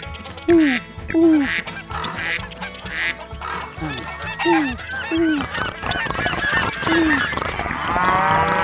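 Farm-bird sound effects over background music: about six short, falling honks among a clutter of squawks and chirps. A cow begins to moo near the end.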